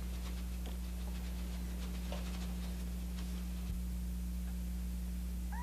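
Steady low hum on the recording with faint scattered clicks and a small tap, then a young lamb's short bleat right at the end.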